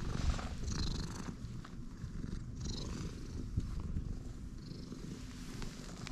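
Domestic cat purring close up while being stroked, the purr growing fainter toward the end as the cat walks away.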